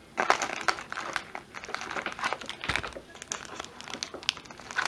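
Foil Pokémon booster pack wrappers crinkling as the packs are handled and pulled from a booster box, in short irregular crackles.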